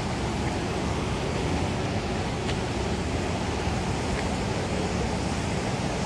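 Steady rushing noise of the water of Niagara Falls, an even roar with no breaks.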